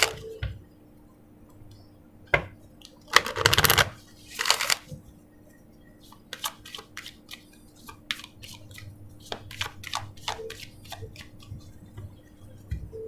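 A deck of large oracle cards being shuffled by hand: several brief brushing, riffling bursts in the first five seconds, then a run of light clicks and taps as the cards are handled.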